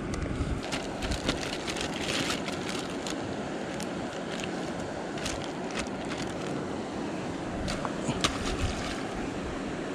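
Plastic bag and a small plastic container being handled: scattered short crinkles and clicks, a cluster about two seconds in and a couple more near the end, over a steady background rush.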